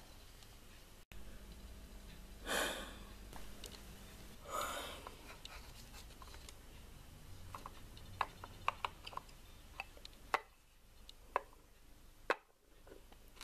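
Quiet room tone with two soft breath-like puffs, then a run of light clicks and taps from plastic toy figures and furniture being handled and set in place.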